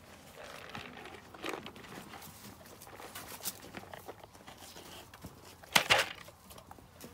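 Irregular rustling and crinkling, with one sharp, louder crack about six seconds in.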